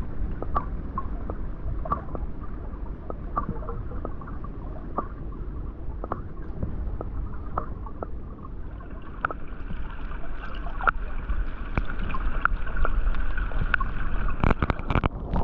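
Underwater recording in a river: a muffled low rumble of moving water with scattered sharp clicks and ticks, growing a little louder and hissier about nine seconds in.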